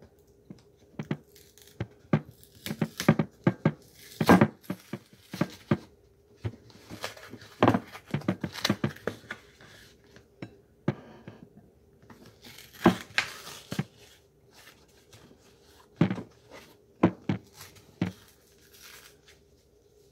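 Paper and thin cardboard of a corn starch box being torn and peeled away by hand, in irregular short rips and crinkles with pauses between them.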